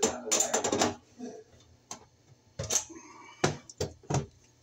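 Light metallic clatter and sharp clicks of tools and wires being handled in a baseboard heater's sheet-metal wiring compartment: a quick rattle in the first second, then single clicks spaced about half a second to a second apart.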